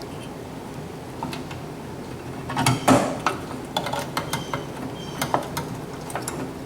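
Metal clicks and clatter of hand tools driving screws into a GE microwave's chassis to fasten the new magnetron: a cluster of knocks a bit over two seconds in, the loudest, then a run of short ticks and clicks.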